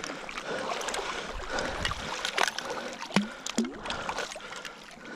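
Water sloshing and splashing around a hunter wading through marsh water in waders, with scattered small splashes and two sharper splashes a little after three seconds in.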